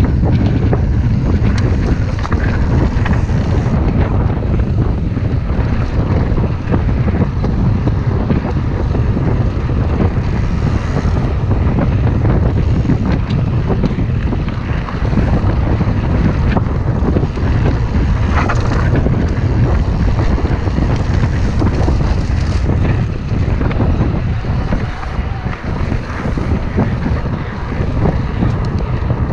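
Wind buffeting the camera microphone over the steady rumble of a Mondraker Dusk RR mountain bike's tyres rolling fast over a gravel dirt trail, with occasional clicks from the bike.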